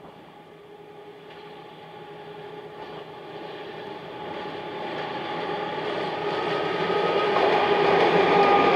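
Diesel freight locomotive hauling a freight train as it approaches, its engine drone and rolling noise growing steadily louder as it comes close.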